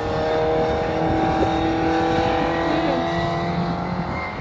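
Hillman Imp race car engine running at steady high revs, its pitch holding nearly constant.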